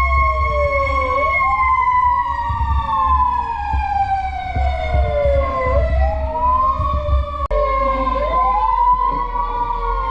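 Several fire truck sirens wailing at once, their rising and falling pitches overlapping and out of step, over a steady low rumble.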